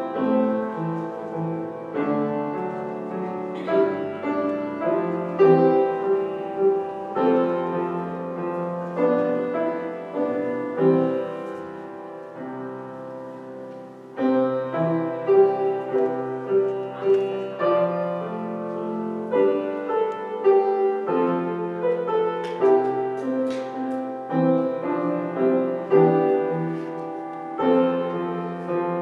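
Grand piano playing solo, a slow piece of struck chords that change every second or two. It softens gradually and pauses briefly about fourteen seconds in, then picks up louder again.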